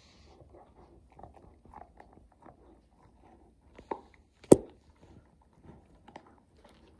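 A beagle gnawing and crunching on a chew bone, with many small irregular clicks and scrapes. There is one sharp knock a little past the middle.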